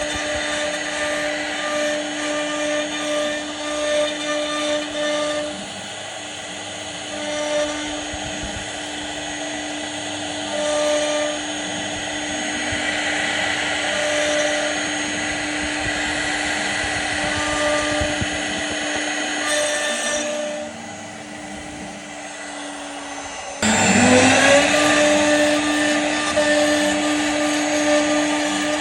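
CNC router spindle running with a steady whine while the bit cuts wood, the cutting noise rising and falling as it works. About twenty seconds in, the sound drops back for a few seconds, then returns louder with a short rising whine.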